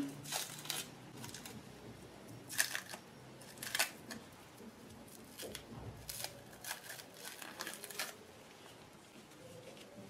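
Plastic cling film being peeled off containers and crumpled: faint, short crinkling rustles, several in a row.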